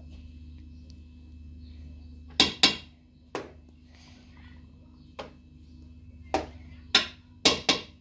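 About eight sharp knocks at irregular intervals, the loudest a close pair about two and a half seconds in and another cluster near the end, over a steady low hum.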